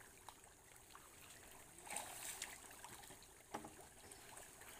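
Faint pond water trickling and lapping around a cement tub-boat, with a brief rush of splashing noise about two seconds in and a small knock near three and a half seconds.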